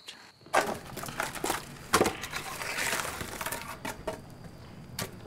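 Scattered knocks and dry crunching of firewood and wood scraps, with the sharpest knock about two seconds in, followed by about a second of crunching.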